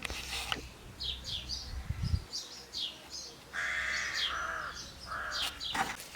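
Birds calling: short high chirps in the first half, then two longer, lower calls a little past the middle. A low rumble underneath stops about two seconds in.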